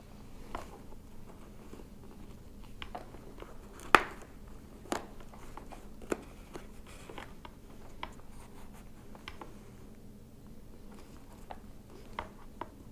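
Hands working inside a Shoei Neotec 2 motorcycle helmet while fitting an intercom headset: rustling of the padding and plastic parts, with scattered clicks. The sharpest click comes about four seconds in, with smaller ones shortly after and near the end.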